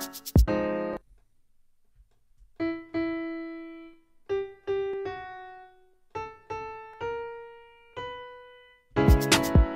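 Keys playing a slow melody of about ten single notes, each ringing out and fading, in a beat being built in D flat. A dense drum-and-sample loop hit sounds at the start and comes back near the end.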